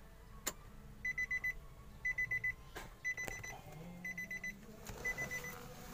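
Car's cabin warning beeper sounding in quick bursts, about one burst of five fast high beeps every second, starting about a second in; a sharp click comes about half a second in.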